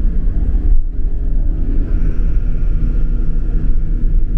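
Tour bus engine and road noise heard from inside the cabin: a loud, steady low rumble, with a faint whine joining for a couple of seconds midway.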